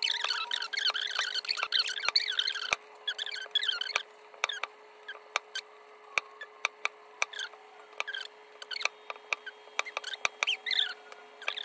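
Kitchen knife slicing garlic cloves on a plastic cutting board: sharp, irregular clicks as the blade meets the board. High, wavering squeaky sounds in the first few seconds and again near the end, over a faint steady hum.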